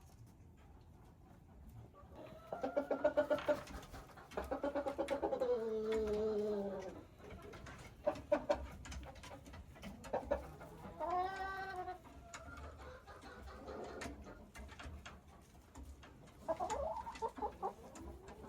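Domestic chickens clucking and calling in a series of separate calls. A quick run of clucks about three seconds in is followed by a longer, falling call, with more calls later on.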